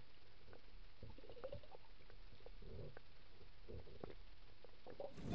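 Faint, muffled underwater sound picked up by a submerged camera: scattered small knocks and low gurgles as a hooked brook trout thrashes on the line near the lens. Just before the end, louder open-air sound of water and wind cuts in.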